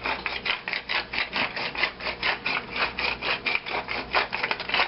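Pepper mill being twisted to grind black pepper: a fast, even run of short rasping crunches, several strokes a second, stopping near the end.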